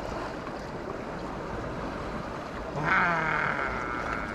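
Steady outdoor wind and water noise by the sea. About three seconds in comes a brief, louder, wavering tone lasting about a second and a half.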